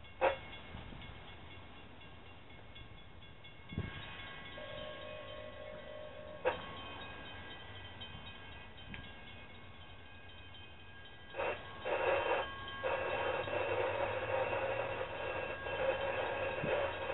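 Distant locomotive horn: a steady blast about five seconds in, then two short blasts and a long held blast through the last few seconds.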